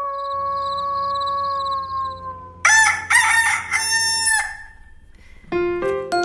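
Rooster crowing: one long held call, then a second rougher crow about two and a half seconds in. Music starts about five and a half seconds in.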